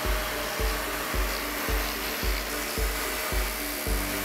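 Background music with a steady beat, about two beats a second, over the steady rushing hiss of an upright vacuum cleaner's motor running.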